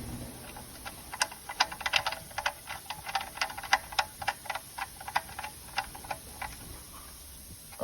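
A run of light, irregular clicks, a few a second, that stops about six and a half seconds in.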